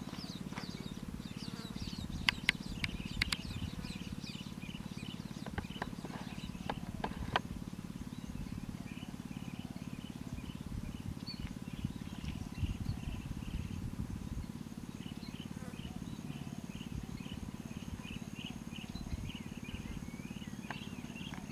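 Birds chirping in quick repeated series over a steady low rumble, with a few sharp clicks in the first several seconds.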